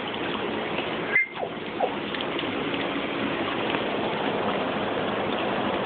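Steady rushing and sloshing of swimming-pool water around a wading person, cutting out briefly about a second in.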